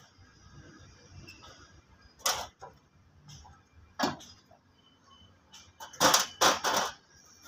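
Metal clanks and knocks from parts and tools on a stopped tractor engine being dismantled. There are single sharp knocks twice, then a louder run of three or four clanks near the end as a metal pipe is lifted off the engine.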